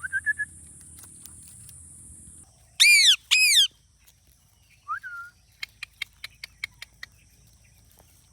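Indian ringneck parakeet calling: a few quick chirps at the start, then two loud arched screeches about 3 seconds in, a short rising whistle near 5 seconds, and a quick run of sharp clicks, about six a second, shortly after.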